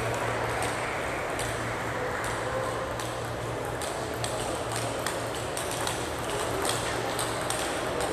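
Table tennis balls clicking irregularly off tables and bats in a large hall, over a steady murmur and a low hum.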